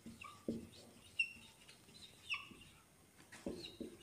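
Marker pen writing on a whiteboard, with faint short bird chirps and a few soft low thuds.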